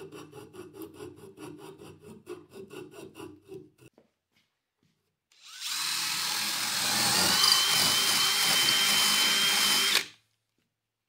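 DeWalt cordless drill boring through two stacked wooden side pieces held in a vise. It runs loud and steady with a high whine for about five seconds from past the middle, then stops suddenly. Before that comes a quieter, fast, even rhythm of about five strokes a second.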